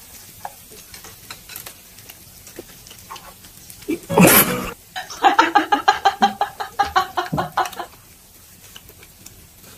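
A burst of rapid cackling laughter, a quick string of 'ha-ha-ha' pulses about eight a second, lasting about three seconds from about five seconds in. Just before it, about four seconds in, comes a brief loud noise.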